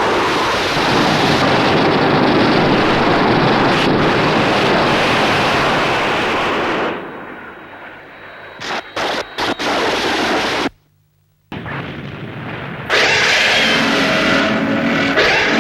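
Loud rumbling noise of explosions on a film soundtrack. It dies away about seven seconds in, followed by a few sharp clicks and a brief moment of silence, and the noise comes back near the end.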